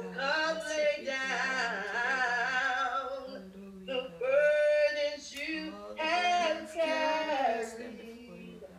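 A woman singing a slow gospel hymn, with long held, gliding notes in phrases and a low sustained note underneath.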